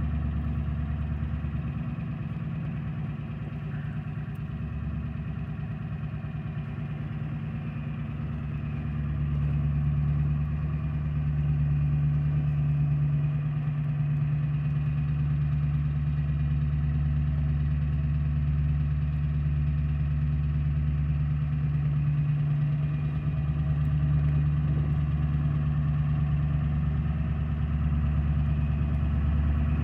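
Ford E-350's 7.3 L Power Stroke V8 turbodiesel idling steadily through its dual 5-inch exhaust, a little louder from about nine seconds in.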